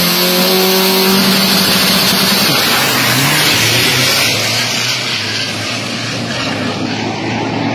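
Isuzu turbo-diesel dragster engine held at steady high revs at the start line, then launching about two and a half seconds in and running off down the strip.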